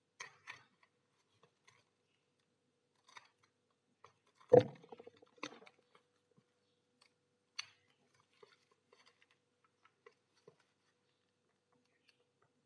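Small knife blade cutting and picking at plastic packing tape on a taped parcel: sparse short crackles, scrapes and ticks. About four and a half seconds in, one loud thump as the parcel is handled on the table.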